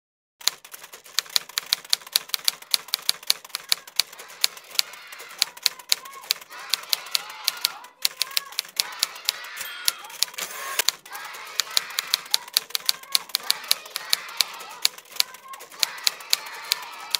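Typewriter keys striking in a quick, uneven run of about four or five clacks a second, pausing briefly about eight seconds in, over a faint murmur of indistinct voices.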